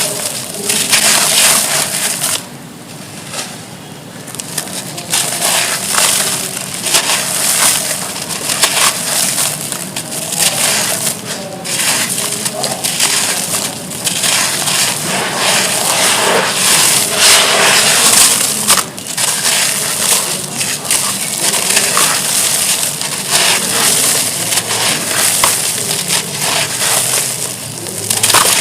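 Lumps of gritty wood charcoal crumbling and being crushed: a dense, continuous run of gritty crackles and crunches, dropping quieter for a couple of seconds near the start.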